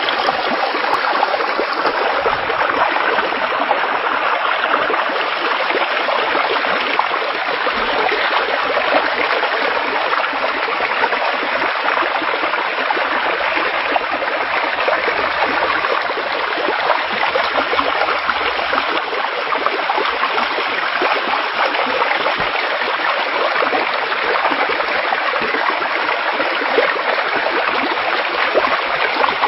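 Floodwater rushing through a breach washed out under a railway embankment: a loud, steady rush of fast, churning water that holds unchanged throughout.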